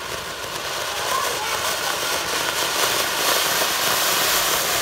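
Ground fountain firework (flowerpot type) spraying sparks with a steady rushing hiss that grows slightly louder.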